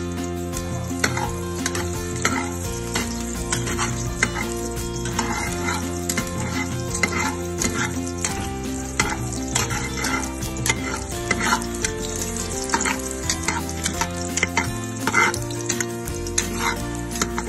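Chopped onion sizzling in hot oil in a steel pot, stirred with a ladle that scrapes and clicks against the pot, over background music.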